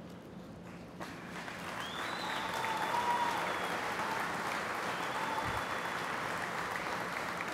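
An audience of assembly-plant workers applauding, swelling about a second in and then holding steady.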